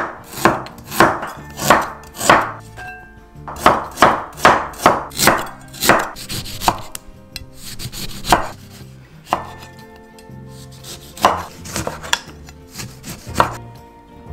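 Kitchen knife chopping peeled ginger and then slicing lemons on a wooden cutting board, the blade knocking on the board about twice a second at first, the strokes coming further apart in the second half.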